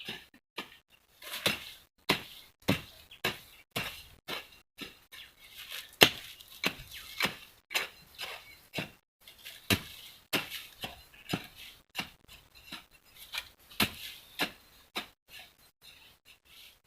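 A digging tool chopping into the ground again and again, in irregular sharp strikes about two to three a second.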